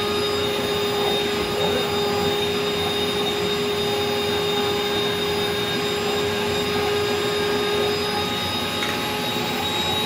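Water-filtration canister vacuum cleaner running steadily while its hose draws on an upholstered chair, the air passing through thin paper filters meant to clog and choke the airflow. A steady tone in its noise fades out about eight seconds in.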